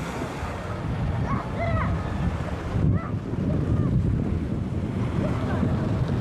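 Wind buffeting the microphone over the wash of sea waves at a harbour wall, a steady low rumble.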